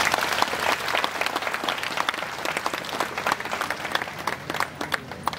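Audience applauding: dense clapping that thins out to scattered separate claps in the second half.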